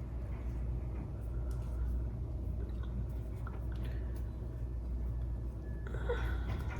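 Steady low hum with faint scattered clicks and light knocks, and a brief louder clatter about six seconds in.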